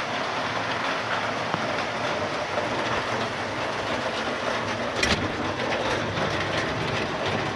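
Rain falling steadily, an even hiss, with a single knock about five seconds in.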